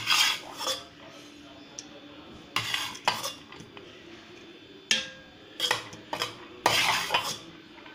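A metal utensil scooping rice and scraping and clinking against steel cooking vessels as the rice is layered for dum biryani, in about five short bursts with quieter pauses between.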